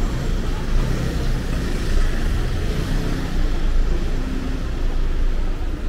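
City street traffic: a steady low rumble of passing motor vehicles, swelling as a vehicle goes by about two to four seconds in.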